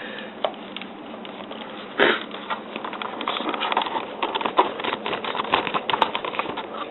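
Handling noise: a knock about two seconds in, then a dense run of small clicks and rustles as the mouse and its cable are handled.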